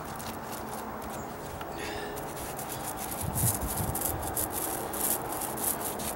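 Mini paint roller rolling wet primer across a deck stair, a run of short hissing strokes as it goes back and forth.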